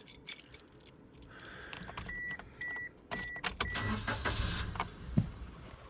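Car keys jangling and clicking in the ignition, with a short high beep repeating about twice a second. About three seconds in, the car's engine cranks, starts and runs on at idle.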